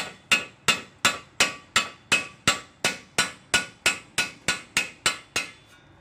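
Brass hammer giving light taps on the axle nut threaded onto the end of a 2001 Ford Escape's front CV axle, about three sharp metallic strikes a second. The taps drive the rust-stuck splined shaft back through the wheel hub, and they stop shortly before the end.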